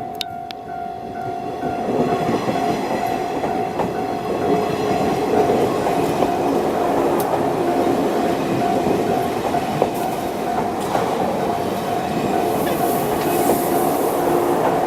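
A 583 series sleeper electric train passing over a level crossing, its wheels clattering over the rail joints, louder from about two seconds in. The crossing's warning bell keeps ringing as a steady tone underneath.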